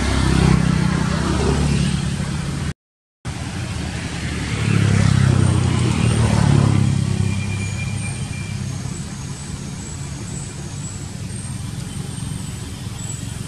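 Motor vehicle engine passing nearby, swelling twice and fading to a steady, quieter rumble, with the sound cutting out completely for a moment about three seconds in.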